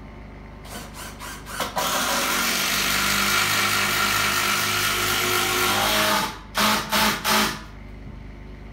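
Cordless drill driving a long screw through the beam into a log post: a few short trigger pulls, then a steady run of about four seconds as the screw goes in, then three short bursts to seat it.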